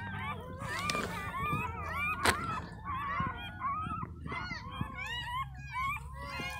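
Newborn puppies whimpering and squealing in many short, high, overlapping cries, with one sharp click about two seconds in.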